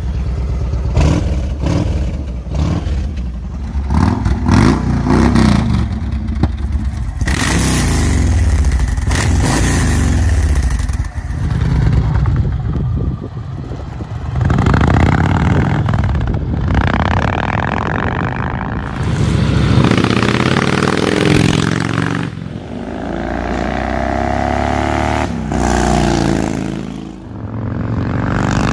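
Yamaha XV1900 cruiser's 1.9-litre air-cooled V-twin engine running under way, revving and pulling through the gears. Its note swells and fades several times as it accelerates and passes by.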